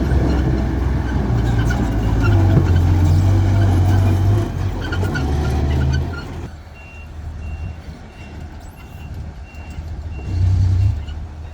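Heavy diesel construction machinery working under load, with a few metallic clanks, then dropping back to a quieter run about six seconds in while a reversing alarm beeps about twice a second. The engine surges briefly near the end.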